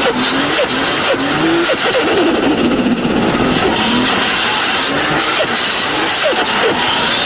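Turbocharged car engine revving in repeated blips, its pitch rising and dropping several times, with the fluttering chatter of the turbo as the throttle snaps shut between revs.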